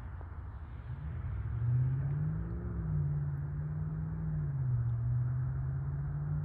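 Distant Boeing 737-700's CFM56 jet engines at takeoff power, a low rumble that swells about a second in, with a low drone that wavers up and down in pitch.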